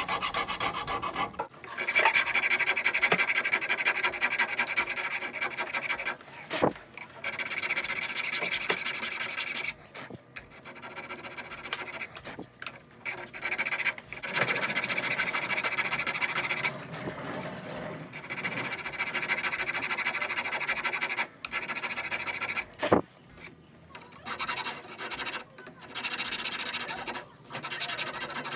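A fine wood rasp scraping across a wooden shotgun stock in quick repeated strokes, in runs of a few seconds with short pauses and a sharp knock or two in between, played back at double speed. The finer rasp is smoothing away the coarse rasp marks to level the comb cut-out.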